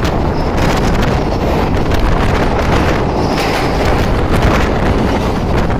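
Moving passenger train heard from an open coach doorway: a loud, steady rumble of the wheels on the rails with scattered clatter, and wind buffeting the microphone.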